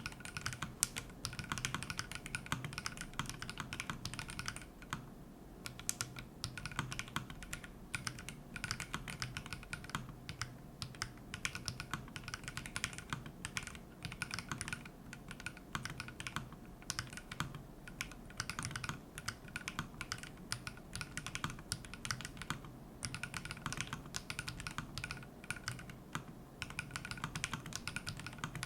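Typing on a custom 60% mechanical keyboard with Phynikeys CHU switches and FBB keycaps on a stainless steel mirror plate, built foamless: a steady run of fast, uneven keystroke clicks with brief pauses.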